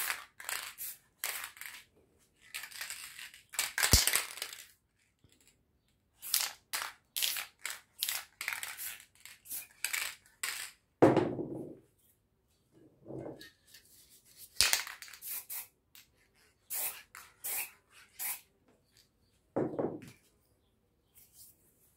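Aerosol spray-paint cans: a run of short, separate spray bursts with gaps between them, mixed with metallic clinks of the cans.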